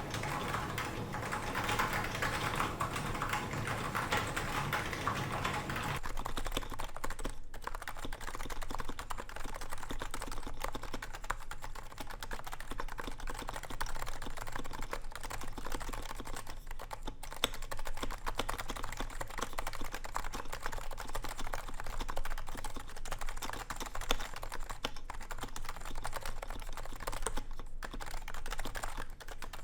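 Continuous typing on a Topre keyboard: stock, unlubricated Realforce R2 electro-capacitive switches with Realforce R2 keycaps, in a DNFU case with a stainless steel plate. It makes a dense run of key presses with a few brief pauses.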